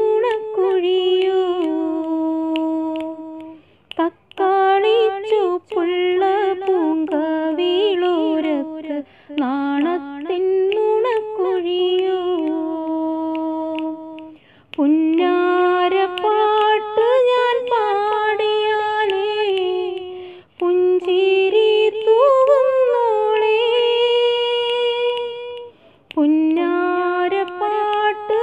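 A woman singing a Malayalam song unaccompanied, in phrases of about five seconds with ornamented gliding notes, each ending on a held note, and short pauses for breath between them.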